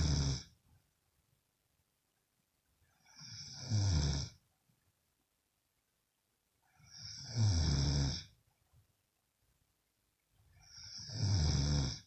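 A woman snoring loudly. The tail of one snore ends right at the start, then three full snores follow about every three and a half seconds. Each swells over a second or so and cuts off sharply.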